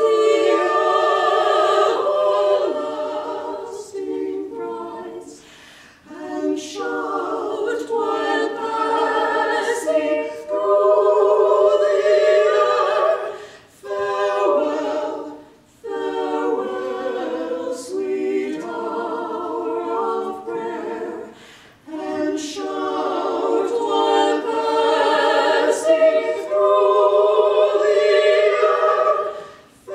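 Four women singing together a cappella in harmony, holding long notes in phrases of a few seconds, with short breaks for breath between phrases.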